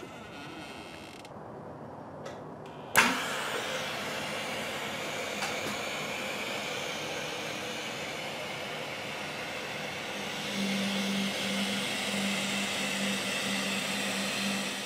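Hydrogen gas hissing steadily through the inflation nozzle into a weather balloon, starting suddenly with a sharp click about three seconds in as the flow comes on. From about ten seconds in, a low buzz pulses on and off about twice a second over the hiss.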